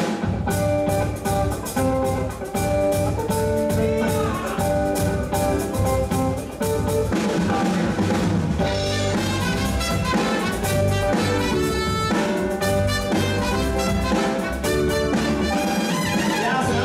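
Big band playing an instrumental jazz passage: saxophones and brass over a drum kit keeping a steady beat.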